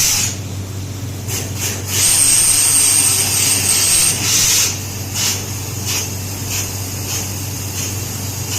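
Borewell drilling rig running with a steady low drone, broken by short hissing blasts and one longer hiss of about two and a half seconds with a thin high whistle over it.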